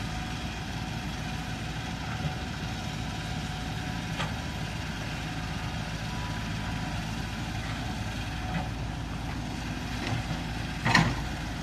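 Excavator diesel engine running steadily, with a short knock about four seconds in and a louder sharp knock near the end.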